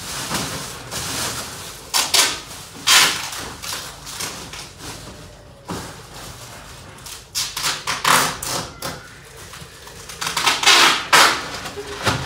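Irregular handling noises: a series of knocks, thumps and rustling scrapes, loudest about three seconds in and again near the end.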